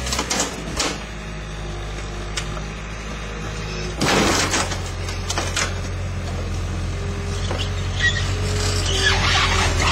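Skid steer engine running steadily, its note changing abruptly about four seconds in, with a few knocks and clatters scattered through.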